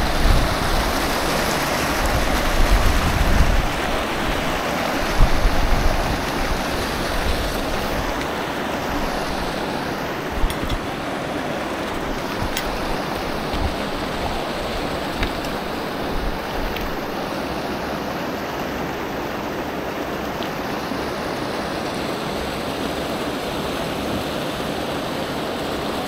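Steady rush of flowing creek water, with low rumbles through the first eight seconds or so and a few faint clicks near the middle.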